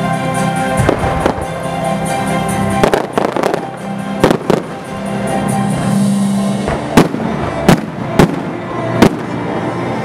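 Aerial fireworks bursting over music: clusters of bangs and crackle in the first half, then four sharp booms in quick succession near the end.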